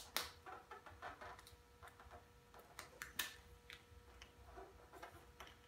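Faint, irregular light clicks and crinkles from a sheet of textured carbon fiber vinyl film being handled and positioned against a motorcycle's plastic tank panel, over a faint steady hum.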